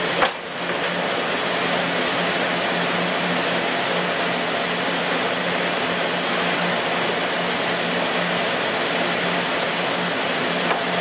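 Loud, steady fan noise of server-room cooling and rack equipment, with a low hum. There is a single knock just after the start and a few faint scrapes as polystyrene packing is lifted out of the server box.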